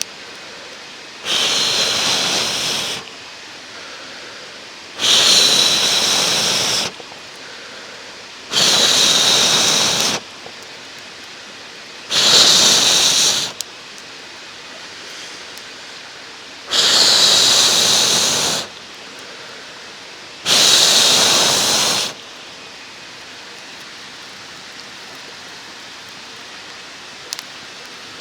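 A person blowing six long, steady breaths in a regular cycle, each about one and a half to two seconds long with a thin whistle in it, a pause for breath between them, stopping about three quarters of the way through. A steady mountain stream runs underneath.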